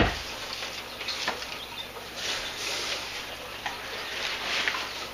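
Rustling and scraping of packaging being handled, with scattered light clicks and knocks and a low thump right at the start.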